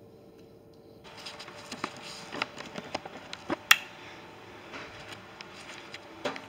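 Hand tools clicking and clinking on metal as a socket wrench is worked on the bolts. The clicks come irregularly from about a second in, with one sharper click a little past halfway.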